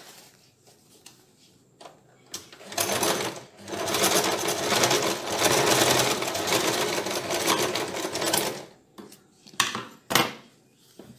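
White domestic electric sewing machine stitching a shoulder seam: a short burst about three seconds in, then a steady run of about five seconds that stops, followed by two sharp clicks near the end.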